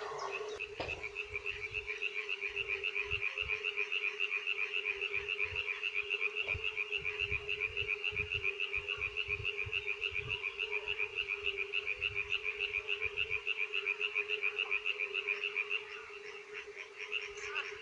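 Frogs calling. One gives a long, fast trill of several notes a second that stops about sixteen seconds in, over a steady, lower-pitched chorus of other frogs.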